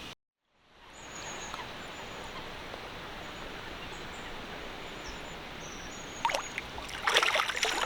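Steady outdoor lakeside ambience, an even wash of wind and water noise with faint, short, high bird chirps. It fades in after a brief dropout at the start, and a few louder bursts come near the end.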